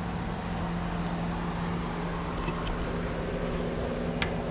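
Steady machine hum with a constant low drone and no change in pitch; a single sharp click near the end.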